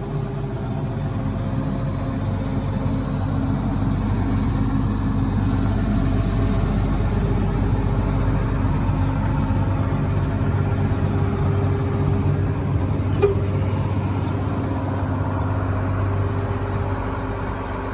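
Case IH 2188 Axial-Flow combine's diesel engine running steadily, growing slightly louder over the first few seconds, with a single short click about 13 seconds in.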